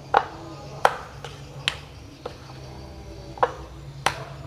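Minced chicken and shrimp filling being lifted and slammed back into a bowl: a run of about seven sharp, wet slaps at uneven intervals. Throwing the meat paste like this works it until it turns firm and springy.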